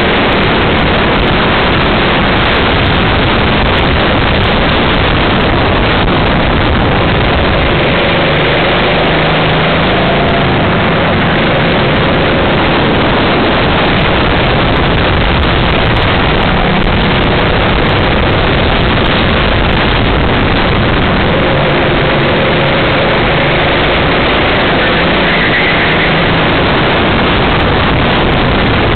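Racing kart's engine running at race pace, heard from a camera mounted on the kart with a dense rush of noise over it. The engine note rises and falls a little through the corners.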